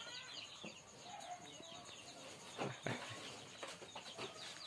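Small birds chirping in many quick, short, falling chirps, with two soft knocks a little over halfway through.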